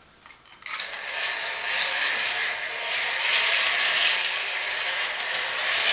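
Tri-ang model electric locomotive with carriages running on its track, its motor and wheels giving a steady whirr that starts about half a second in. The owner suspects slightly bad connections in its wiring and on the track are keeping it from running as well as it should.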